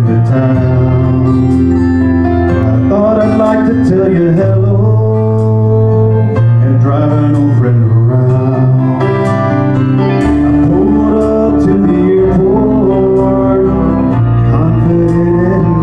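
Country karaoke backing track playing an instrumental passage, with guitars over held bass notes.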